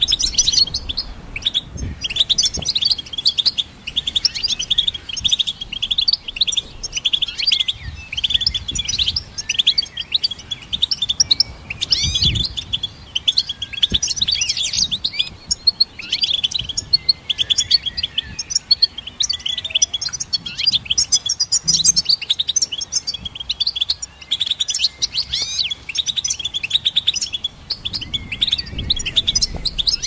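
European goldfinch singing: a continuous, rapid twittering song of quick chirps and trills, with only brief pauses.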